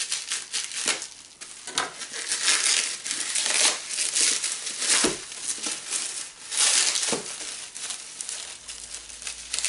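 Clear plastic wrap around a boxed Funko Pop vinyl figure crinkling in irregular bursts as it is handled and pulled open by hand, with a couple of sharper taps partway through.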